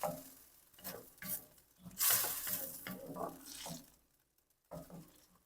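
Shrimp being stirred through a pan of thickened, simmering sauce, in a few irregular strokes with a longer run of stirring midway.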